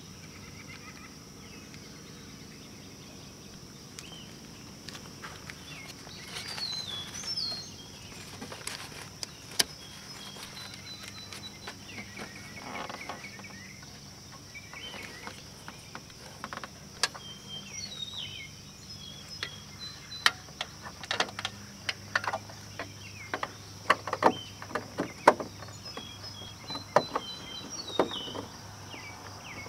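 Birds chirping now and then over a steady high hiss. In the second half comes a run of sharp clicks and knocks as hands work at the taillight's fastener and bulb socket behind a car's trunk liner.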